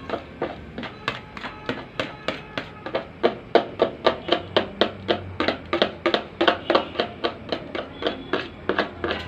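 Music with a steady, fast percussive beat of about three to four strikes a second.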